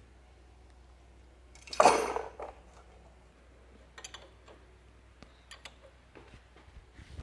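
Metal tools and engine parts clinking and clattering: one loud metallic clatter about two seconds in, then a few sharp separate clicks.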